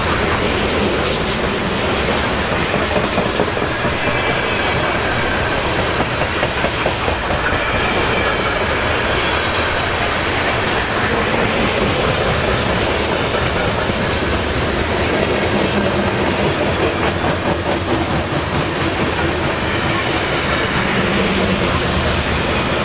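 BNSF coal train's freight cars rolling past at speed: a steady rumble with the clickety-clack of wheels over the rails.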